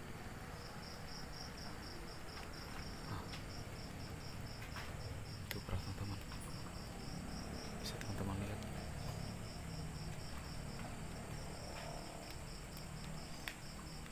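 Night insects, most likely crickets, chirping in a steady run of short, high pulses, a few per second, that pauses briefly about ten seconds in; a low rumble runs underneath.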